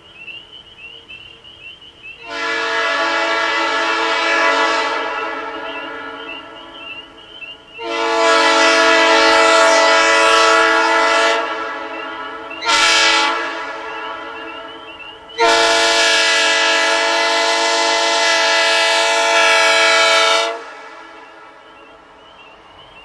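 Diesel locomotive multi-chime air horn sounding four blasts: long, long, short, long, the pattern of the grade-crossing signal. Each blast's chord holds steady, then the sound dies away slowly as it echoes off the surrounding mountains. Night insects chirp steadily underneath.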